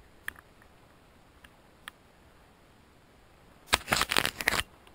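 Loud scraping rustle of cloth or brush rubbing right against the microphone for about a second near the end, after a few faint snaps of twigs underfoot.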